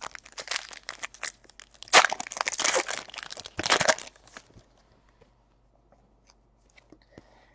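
Foil trading-card pack wrapper being torn open and crinkled, with a crackly rustle that is loudest about two seconds in and again near four seconds. After that only a few faint ticks.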